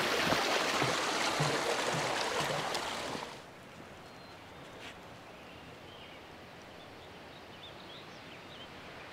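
Creek water rushing, a steady hiss, with a few soft thumps, until it cuts off about three seconds in. After that, quiet outdoor background with a few faint bird chirps.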